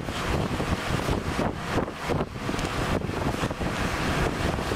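Wind buffeting the microphone at the open window of a moving vehicle, gusting up and down irregularly, over the vehicle's road noise.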